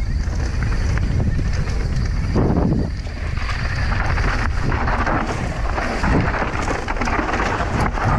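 Wind buffeting the camera microphone, mixed with the rolling noise of a mountain bike's tyres on a dry dirt trail at speed.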